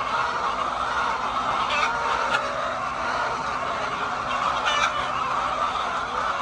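A large flock of hens clucking and calling together in a continuous din, with a few louder individual calls standing out about two seconds in and near five seconds.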